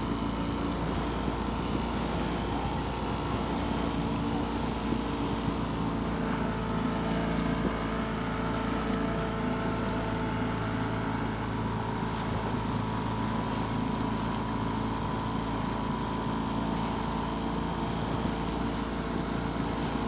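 Small motorboat's engine running steadily under way, with a constant hiss of wind and water.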